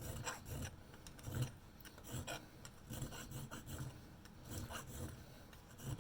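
A very fine file rasping in short, irregular strokes on the chipped edge of an espresso machine's boiler cap. It is evening out the seating lip so the new O-ring fits down evenly all the way around.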